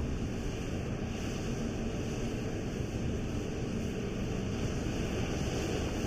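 Heavy diesel earthmoving machinery running steadily, a low, even engine noise with no breaks.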